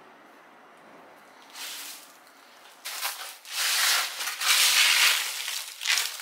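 Dry leaves and twigs rustling and crunching as they are gathered up by hand and dropped onto a heap. It starts softly, then from about three seconds in comes in loud, irregular bursts.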